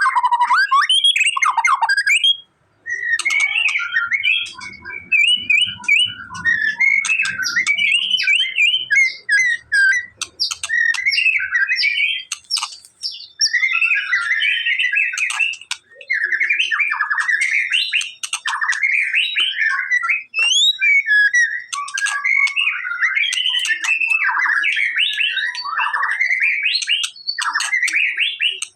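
White-rumped shama singing a long, varied song of rapid whistled and chattering phrases with sharp clicking notes, broken by short pauses.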